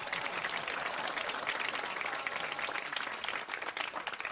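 A crowd clapping and applauding, many hands at once at a steady level.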